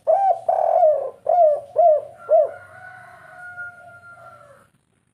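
Spotted dove cooing: a quick run of about six short arched coos, one of them longer near the start, followed by a fainter long drawn-out note that stops about four and a half seconds in.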